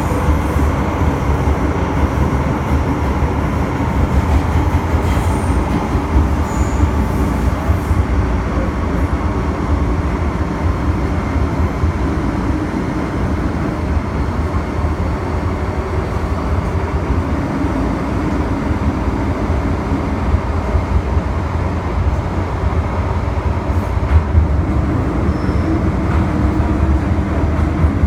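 MTR M-Train electric multiple unit running at speed through a tunnel, heard from inside the carriage: a steady, loud, deep rumble of wheels and running gear on the track.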